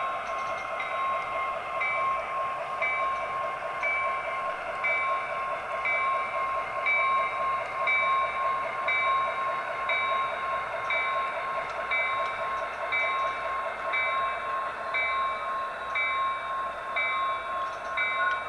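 HO scale model diesel locomotive's sound decoder playing a running diesel engine, with the locomotive bell ringing steadily about once a second.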